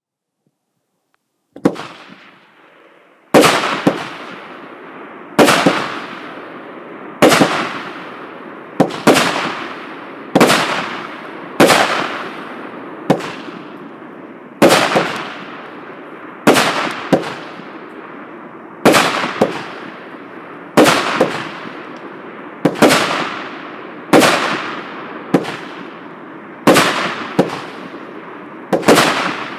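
A 36-shot firework cake firing its shots one after another, a sharp bang about every one and a half seconds, each trailing off before the next. After a faint start it begins firing about three seconds in, and some shots come in quick pairs.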